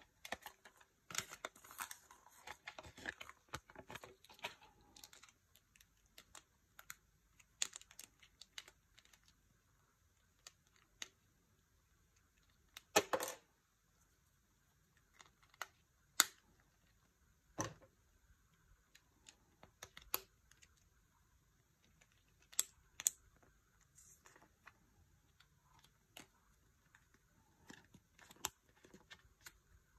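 Paper instruction leaflet rustling for the first few seconds, then small plastic parts of a Kinder Joy toy clicking and snapping together by hand in scattered sharp clicks, the loudest a short crackle partway through.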